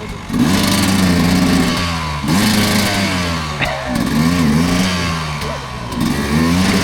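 Dirt bike engine revving hard and dropping back several times as the throttle is worked, over a steady low engine drone.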